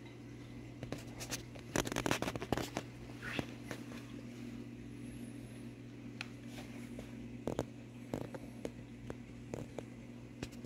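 Reef aquarium equipment humming steadily and low, overlaid by scattered sharp clicks and crackles that are densest about two seconds in.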